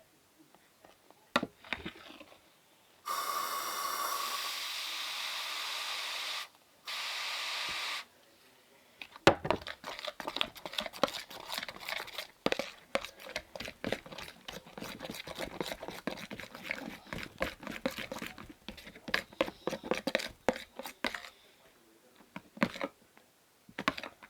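An aerosol can of spray starch hissing in two long bursts, the second shorter. Then about twelve seconds of dense, irregular sticky clicking and squishing as slime is mixed.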